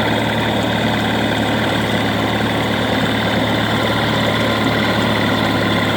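1988 Mercury 9.9 hp two-stroke outboard motor running steadily with no misfires, now that the handle kill wire that was intermittently grounding out has been disconnected.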